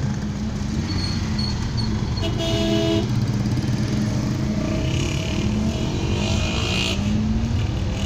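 Street traffic heard from inside a moving vehicle: its engine runs steadily, with motorcycles riding close by. A short horn toot sounds about two and a half seconds in.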